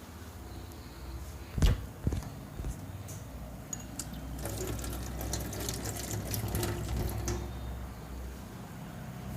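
Wet, crackling squelches of oiled hands working over skin during a heavy oil massage, densest in the middle. A single sharp smack about a second and a half in, followed by two softer ones.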